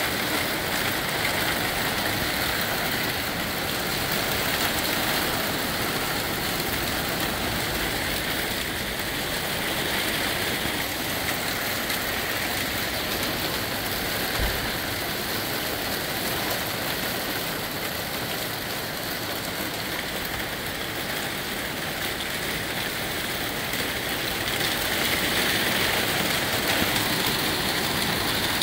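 Steady downpour of rain and small hail, with gusty wind rumbling on the microphone and the noise swelling and easing slowly; a single brief thump about halfway through.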